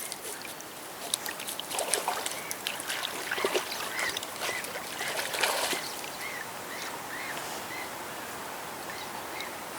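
Irregular scraping and clicking from cleaning a freshly caught pike. From about four seconds in, a bird gives a run of short chirps, about two a second.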